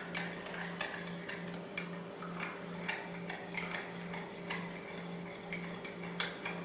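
A spoon stirring a powdered drink mix in a glass, clinking against the sides about two or three times a second. A steady low hum pulses underneath.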